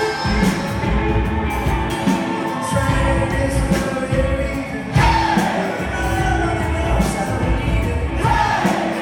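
Rock band playing live with sung vocals, drums and amplified guitars, heard from the audience.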